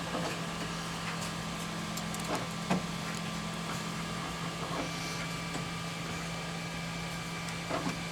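Steady machine hum with a few faint clicks, the loudest about three seconds in and another near the end.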